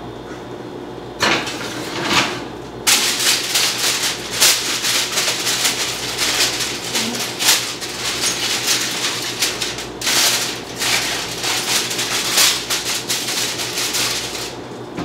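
Aluminium foil crinkling rapidly as it is pressed over a baking dish, after a couple of knocks of dishes and oven racks being moved. The crinkling starts about three seconds in and goes on in dense rapid crackles.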